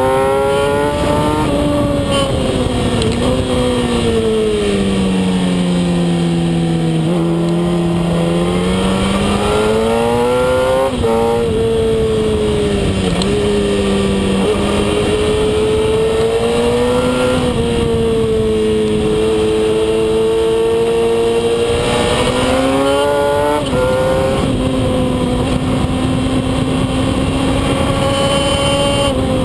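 Kawasaki ZX-10R's inline-four engine heard from a camera mounted on the bike, ridden hard on a race track: the engine note falls off for several seconds, climbs again, and steps sharply in pitch twice at gear changes, under a steady rush of wind noise.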